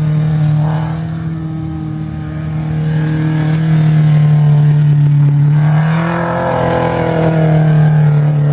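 Car engine running at steady high revs under load, its pitch rising a little about six seconds in as it gets louder.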